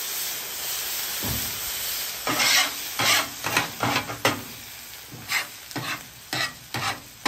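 Water sizzling and steaming on a hot steel griddle top while a metal scraper scrapes off caramelized teriyaki sauce sugars. A steady hiss comes first, then a series of short scraping strokes from about two seconds in.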